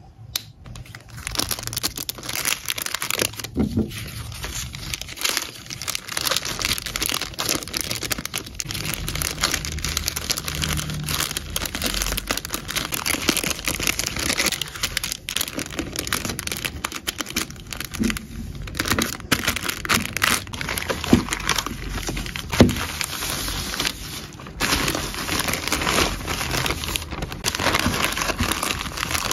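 Thin plastic packaging crinkling and rustling in the hands as clear plastic bags and a white poly mailer bag are handled and folded. It goes on almost continuously with brief pauses, and a couple of sharper clicks come about two-thirds of the way in.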